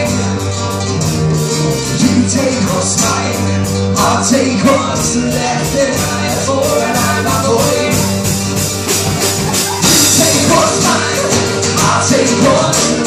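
Live rock band playing: guitars, bass and drums with a steady beat, and singing at times. It gets louder and brighter about ten seconds in.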